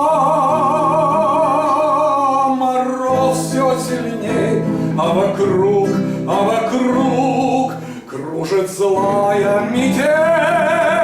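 A man singing the closing phrases of a Russian song with guitar accompaniment, holding long notes with vibrato at the start and again near the end.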